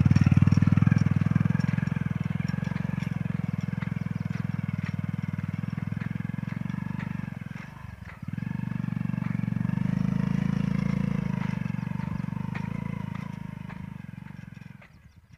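Motorcycle engine running under load as the bike drags a wooden-frame weeder through the soil between cotton rows. It dips briefly about halfway, picks up again, then dies away near the end.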